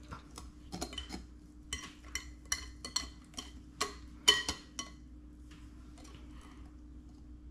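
Metal wire whisk clinking and tapping against a glass mixing bowl as thick banana bread batter is whisked by hand: irregular light ticks that thin out after about five seconds.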